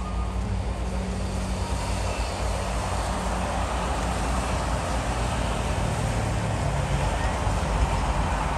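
A plane's jet engines heard across the airfield, a steady rushing noise that grows a little stronger from about three seconds in.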